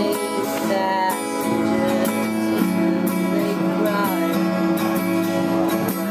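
Music: strummed acoustic guitar, with a voice singing over it.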